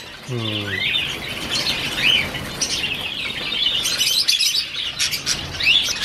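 A chorus of many caged pet birds chirping and calling at once, with short sharp rising chirps standing out over a steady chatter.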